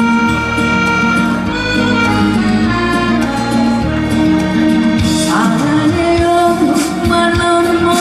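Music: the instrumental intro of a semi-trot song, with a female voice starting to sing about five seconds in.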